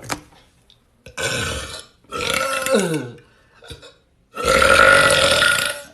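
A person belching deliberately: three long, loud burps. The second drops in pitch at its end, and the last, about four and a half seconds in, is the longest and loudest.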